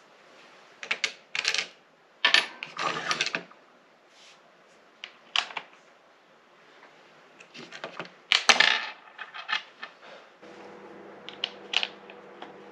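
Irregular clicks and rattles of plastic parts and small metal hardware as a Stanley chainsaw's engine housing is worked on by hand, coming in several short clusters. A steady low hum sets in suddenly near the end.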